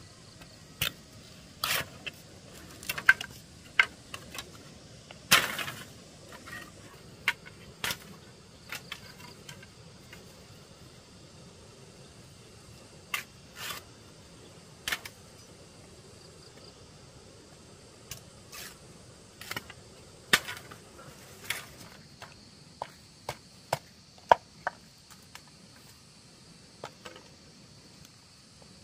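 Irregular sharp knocks and taps of hand tools working wood, unevenly spaced, some in quick pairs, over a faint steady high drone of insects.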